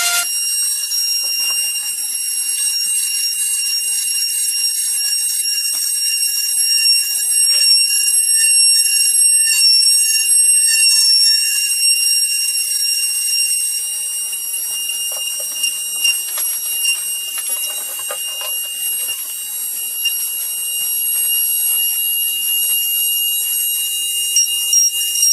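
High-speed CNC router spindle running with a steady high-pitched whine while the cutter works through the material, with faint irregular crackle from the cut, heaviest past the middle.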